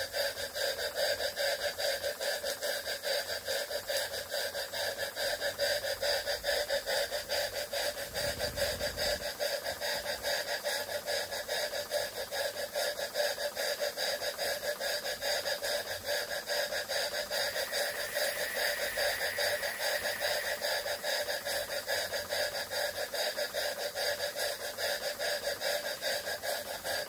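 Jensen 20G model steam engine running fast on steam from a copper boiler: a rapid, even beat of exhaust puffs over a steady steam hiss.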